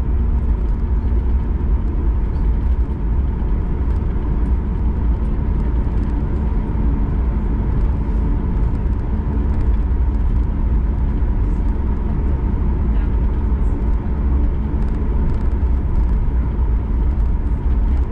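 Cabin noise of a Boeing 737 MAX 8 taxiing slowly on its LEAP-1B engines at idle: a steady low rumble with a constant hum and whine.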